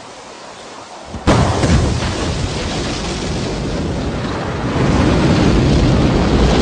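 Rocket launch: a soft hiss gives way about a second in to a sudden, loud, deep rumble as the engines ignite, which grows louder again near the end.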